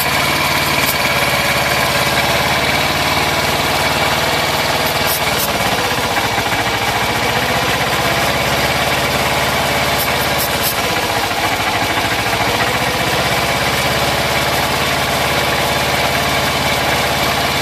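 1982 Yamaha XS400 Seca's parallel-twin engine idling fast, warm and off choke. Twice, about five and eleven seconds in, the idle turns uneven for a second or two: the engine stumbling as starter fluid reaches the leaking carb-side of the intake boots, which the owner takes for the vacuum leak behind its poor starting and idle.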